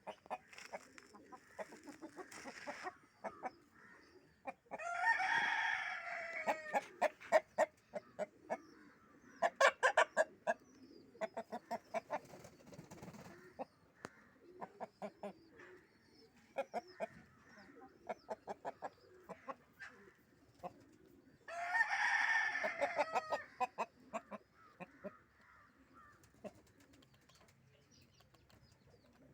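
A rooster crowing twice, once about five seconds in and again about twenty-two seconds in, each crow lasting about two seconds. Short clucking calls come between the crows.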